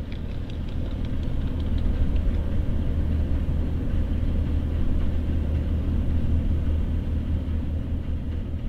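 Low, steady rumble of the cargo ship M/S Westborg's engine as she sails in, swelling a little through the middle and easing off toward the end.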